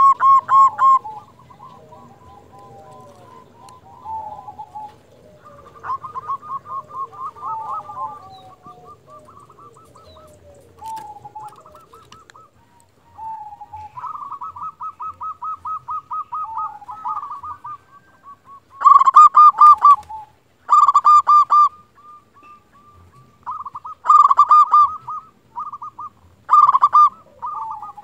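Zebra dove (perkutut) cooing: repeated rapid, trilling coo phrases, softer at first and much louder in several phrases from about two-thirds of the way through.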